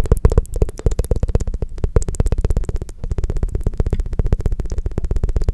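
ASMR tongue fluttering close to the microphone: the tongue flaps rapidly against the lips and mouth, a continuous stream of fast wet clicks at about fifteen a second.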